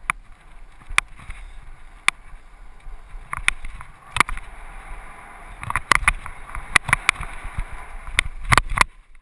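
Mountain bike riding fast down a dirt forest trail: steady tyre and trail noise with wind rumble on the microphone, broken by about fifteen sharp clicks and knocks of the bike rattling over bumps, coming thicker in the second half. It cuts off suddenly just after nine seconds.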